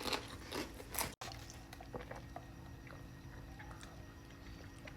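A person chewing a mouthful of food, with a few short crunchy bites in the first second and then faint, soft chewing.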